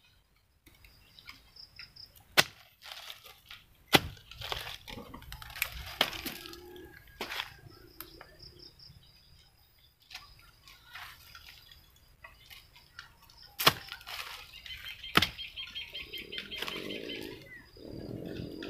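Short-handled hoe chopping into damp soil, several sharp strikes with dirt crumbling and clods being broken up by hand between them.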